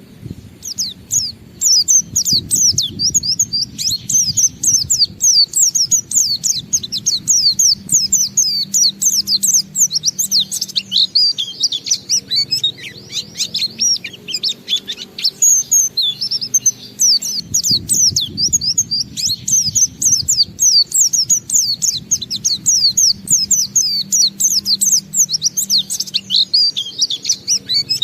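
White-eye (pleci, Zosterops) singing a long, unbroken run of rapid high chirping notes, starting about a second in: the continuous 'ngalas' song that keepers play to set other white-eyes singing.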